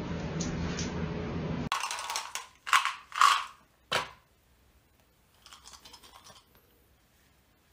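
A steady droning noise that cuts off abruptly about a second and a half in. Then comes a few sharp rattling clatters of small hard objects shaken in cupped hands, three loud ones close together, followed by a fainter, shorter rattle.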